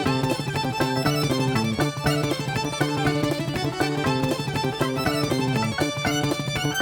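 Background music: an upbeat tune with quick plucked-string notes over a steady bass line.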